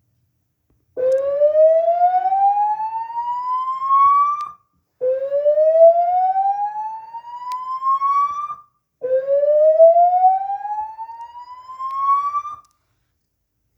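Notifier AFP-400 voice evacuation system's slow-whoop alert tone, played back: three rising whoops, each sweeping steadily upward in pitch for about three and a half seconds before cutting off, the alert that comes before each spoken evacuation message.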